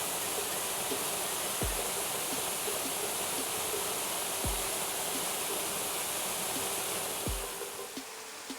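Rushing water of a mountain stream or waterfall, a steady hiss that drops away near the end. Under it, background music with a low falling bass note about every three seconds over a held tone.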